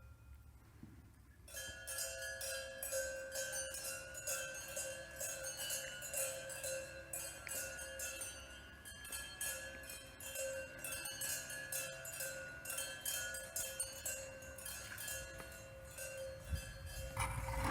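Rapid, dense metallic tinkling over steady bell-like ringing tones, starting about a second and a half in, with a low rumble near the end.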